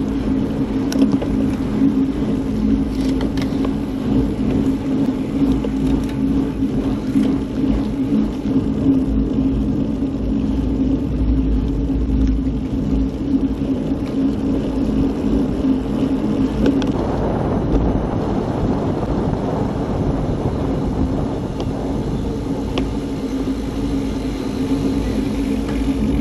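Steady road rumble and wind noise from riding on the road, over a steady low hum; a broad rush of noise swells about 17 seconds in and stays up.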